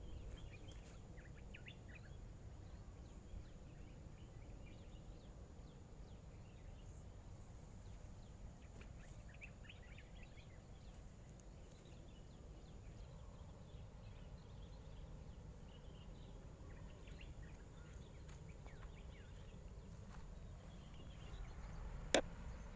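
Quiet riverbank ambience: a low steady background rumble with faint, scattered bird chirps, and a single sharp click near the end.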